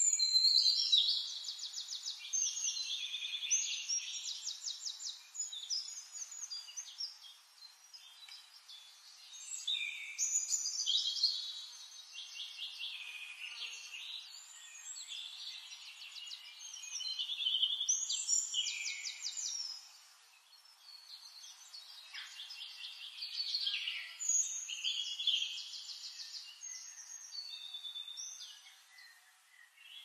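Forest songbirds singing: rapid, high-pitched trills and chirps that overlap and swell into louder bouts every several seconds.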